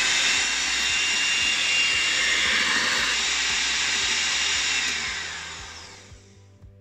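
Hamilton Beach electric hand mixer running with a steady high whine, its beaters whipping egg whites and sugar into meringue in a stainless steel bowl. About five seconds in it is switched off and winds down to a stop.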